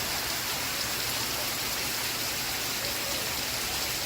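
Steady rain falling on a surface, an even hiss of drops.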